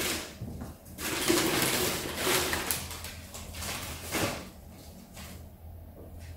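Crinkly rustling, likely paper wrapping, as an item is lifted from the box and unwrapped. It stops about four seconds in, and fainter handling sounds follow.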